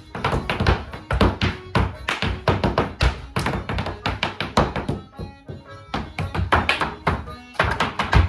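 Rapid percussive dance footwork, shoes striking a hard floor in quick rhythmic taps and heavier stamps over music, with a brief lull about five seconds in.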